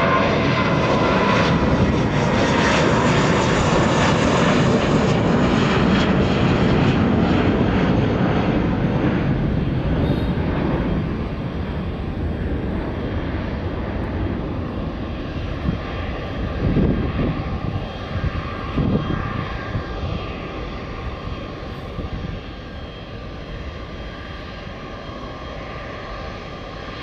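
Boeing 777-300ER's twin General Electric GE90-115B turbofans running at taxi power: a loud steady jet rush that eases off after about ten seconds, leaving a quieter steady rumble with a thin fan whine. There are a couple of low thuds about two-thirds of the way through.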